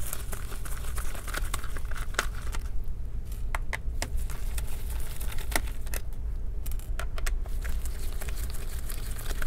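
Small scattered clicks and ticks of a Phillips screwdriver backing out a laptop battery's small screws, with gloved hands handling the parts, over a low steady hum.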